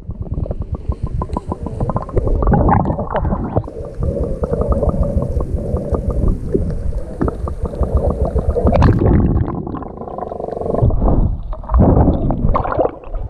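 Muffled underwater sound from a camera held below the surface while snorkeling: a low rumble with rapid crackling of water moving around the camera, and one sharper, brighter noise about nine seconds in.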